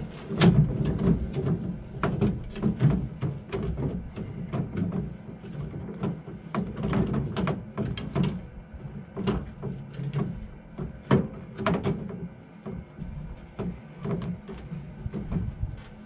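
Ford F-150 spare-tire winch being cranked by a long jack rod through the bumper: a continuous run of irregular metallic clicks and clunks, several a second, over a low rumble, as the spare tire pays out on its cable and lowers.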